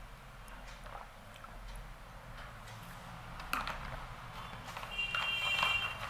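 Faint sounds of drinking from a plastic water bottle, then a sharp clack about three and a half seconds in as the bottle is set down. Near the end comes a brief, louder, high-pitched tone.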